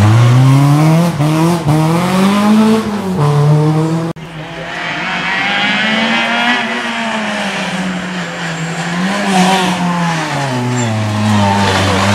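Rally car engines revving hard through a tight hairpin, the engine note rising and falling with throttle and gear changes. About four seconds in the sound breaks off abruptly, and another car's engine builds up, holds, then drops in pitch near the end.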